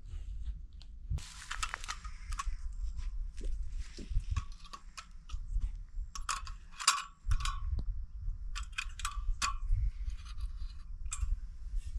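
Irregular clicks, knocks and crunches of objects being handled, a few sharper clinks among them, over a steady low rumble.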